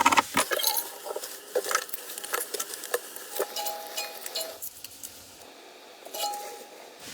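Scattered light clinks and knocks, like metal utensils or pots being handled, with a few short metallic rings.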